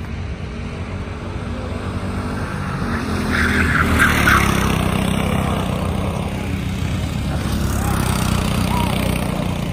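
Racing go-karts running on the track, their small engines buzzing steadily; a kart passes close and loudest about four seconds in.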